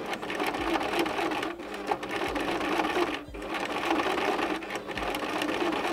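Electric sewing machine running steadily, its needle stitching rapidly as a ribbon border is sewn down, with two short dips about a second and a half in and just past three seconds.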